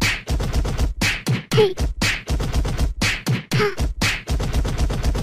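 Beatboxing: rhythmic vocal percussion in a steady beat that repeats about once a second.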